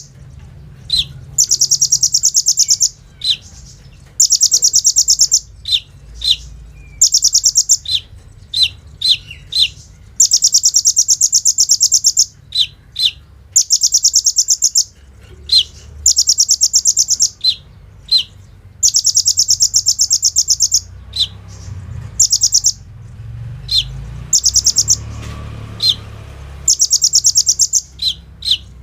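Kolibri ninja (brown-throated sunbird) singing: repeated rapid, machine-gun-like rattling trills of a second or two each, broken by short, sharp, high single chirps.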